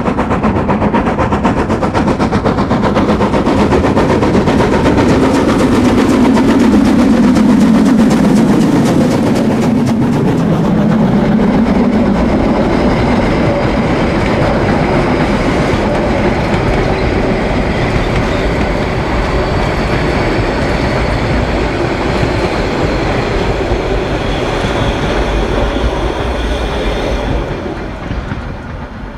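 A Harzquerbahn metre-gauge steam train running past, its wheels clacking over the rail joints, loud and steady and then fading near the end.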